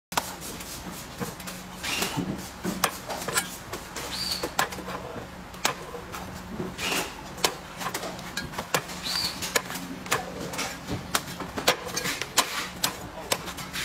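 A cleaver chopping the husk off a green coconut on a wooden chopping block: a run of sharp, irregular chops, often two or three a second. Two short, high bird-like chirps come through, about 4 and 9 seconds in.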